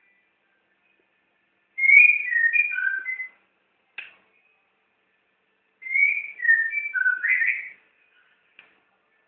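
White-rumped shama (murai batu) singing: two short phrases of clear, varied whistled notes a few seconds apart, with a brief sharp note between them.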